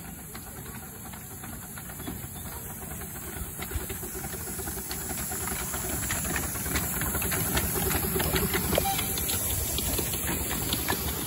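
Double-headed miniature steam locomotives hauling a passenger train past at close range: steam hissing, with rapid clicks from the running gear and track, growing steadily louder as the train approaches.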